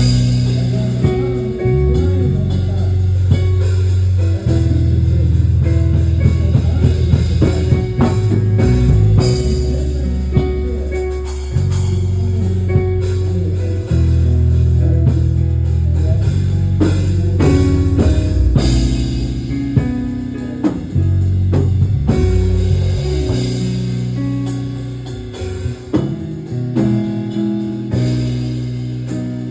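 Band music with a bass guitar playing long low notes that change every second or two, over guitar and a drum kit.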